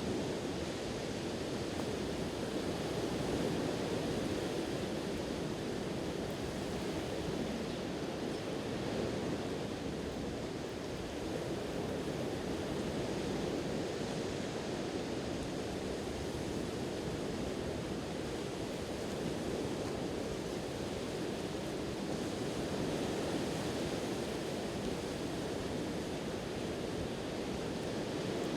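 Sea waves washing on the shore: a steady wash of surf that swells and eases gently.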